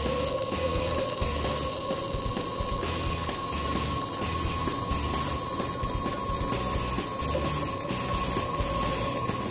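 MIG welding arc crackling steadily while a bead is laid on a 16-gauge steel lap joint with .035 ER70S-6 wire under 100% CO2 shielding gas, from a Fronius TransSteel 2200 inverter welder on 230 V.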